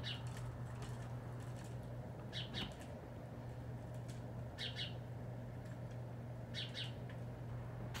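Northern cardinal calling: short, sharp high notes in quick clusters, repeated four times about every two seconds, over a steady low hum.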